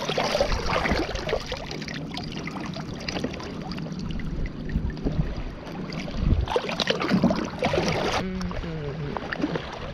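Water splashing and sloshing, with a few small knocks, louder for a couple of seconds about six seconds in.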